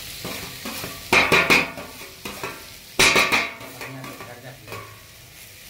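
Chopped tomatoes scraped with a spoon out of a steel bowl into a kadhai of hot oil and fried onions. They sizzle loudly in two sudden bursts, about a second in and again about three seconds in, with a lower sizzle between and after.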